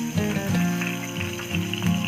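Instrumental background music with changing pitched notes. Beneath it is a faint sizzle of pointed gourds frying in oil.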